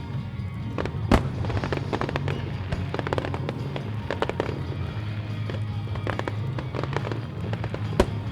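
Aerial fireworks bursting and crackling in a dense string of sharp bangs, two of them much louder than the rest, about a second in and near the end, over music played through loudspeakers.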